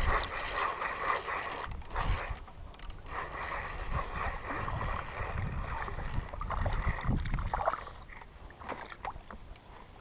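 Water sloshing and gurgling close to the microphone while a spinning reel is cranked, retrieving a hooked small fish. The sound eases off a little after about eight seconds.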